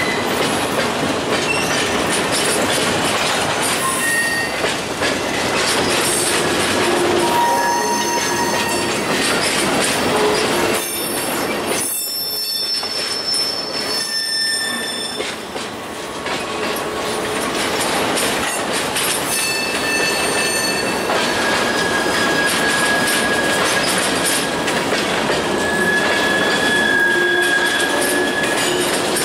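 Freight train cars rolling past on steel wheels in a steady roar, with high squeals coming and going.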